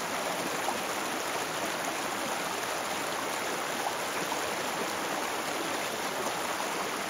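Shallow mountain stream rushing over rocks and boulders, a steady, even rush of water.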